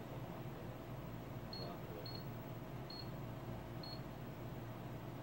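Four short, high-pitched beeps about half a second to a second apart, over a steady low electrical hum and hiss.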